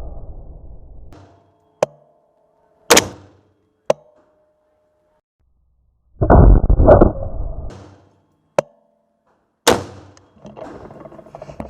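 .223 rifle fired once, a little over six seconds in; the blast fades over about a second and a half. The tail of an earlier shot fades at the start. Sharp metallic clicks and clanks come between the shots, and rustling handling noise starts near the end.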